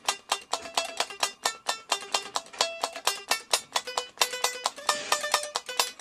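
Electric guitar picked in a fast run of single notes, several a second, with a clean, bright tone.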